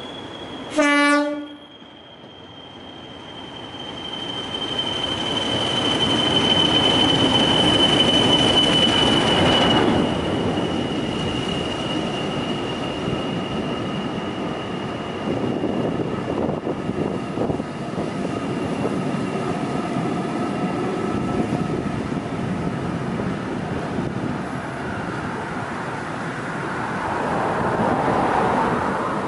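English Electric Class 40 diesel locomotive 40106 sounds one short horn blast about a second in. It then runs beneath at speed, its high turbocharger whistle dropping slightly in pitch as it passes under, over the engine's noise. The rumble of the coaches rolling over the rails carries on behind it and swells again near the end.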